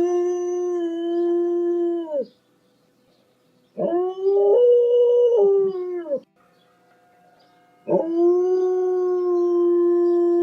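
A dog howling: three long, steady howls with short pauses between them, the middle one stepping up in pitch partway through.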